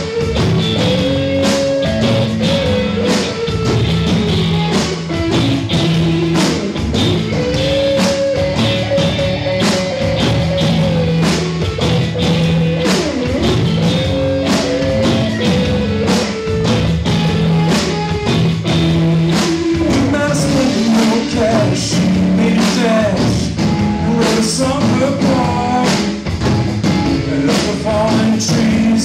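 Live rock band playing: two electric guitars, electric bass and drum kit, with a sustained, bending melodic line over steady drums.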